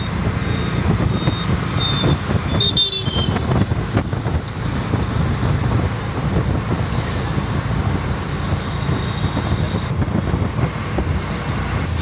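Road traffic noise heard from a moving vehicle on a city street: a steady low rumble of engines and tyres, with a few short high-pitched toots about one to three seconds in.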